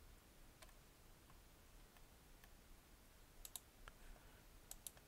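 Faint computer mouse clicks: a single click about half a second in, then two quick double-clicks in the second half, over near silence.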